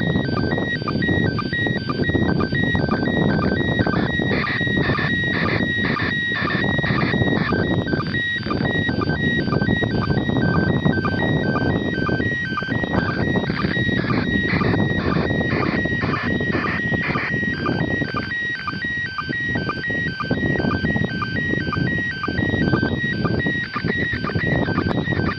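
Satellite telemetry signal received on a Quansheng handheld radio: a steady hiss with a fast chain of short electronic tone beeps repeating several times a second.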